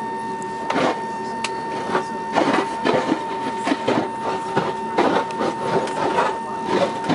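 De-icing fluid from a de-icing truck's spray boom striking the airliner's fuselage and cabin window, heard from inside the cabin as irregular rushing spatters starting about a second in. A steady high whine runs underneath.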